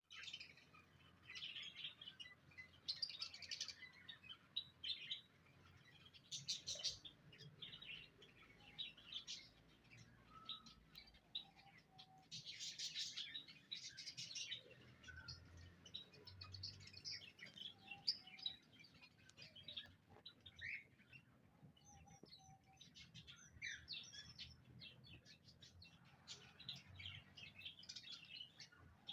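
Small pet birds (budgies, lovebirds and finches) chirping and twittering almost without pause: many short, high calls and trills overlapping one another.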